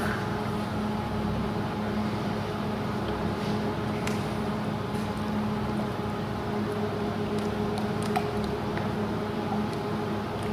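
Steady mechanical hum with a constant low drone, with a few faint clicks and knocks.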